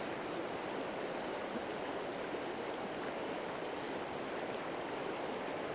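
Shallow river rapids rushing steadily over boulders and cobbles.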